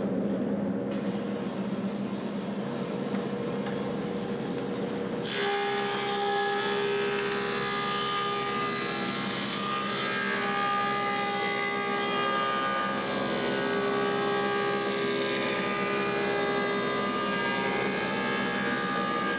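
Woodmaster planer with a helical cutterhead running empty with a steady hum. About five seconds in it starts planing an osage orange board, and the sound turns to a steady, higher whine with a hiss of cutting.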